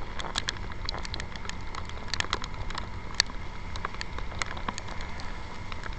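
Raindrops ticking irregularly on a handlebar-mounted camera over a steady low rumble of wind and a riding motor scooter on a wet road. One tick about three seconds in stands out from the rest.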